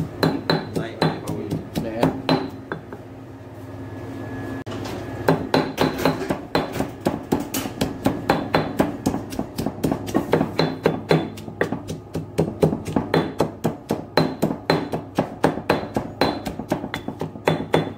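Stone pestle pounding shallots and chilies in a granite mortar into a paste: quick repeated thuds of stone on stone, about three to four a second, with a pause of a couple of seconds about two seconds in.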